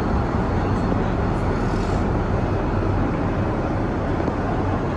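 Steady in-flight cabin noise inside a Boeing 787-9 airliner: the even rush of airflow and engine sound, with a low hum underneath.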